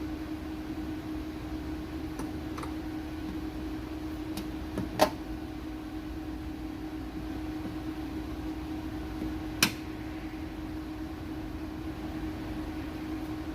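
Plastic trim clips snapping into place in a car's trunk lid trim: two sharp clicks about five and ten seconds in, with a few fainter ticks before them, over a steady low hum.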